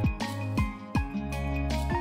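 Background music with sustained notes over a steady beat of low drum hits, about two a second.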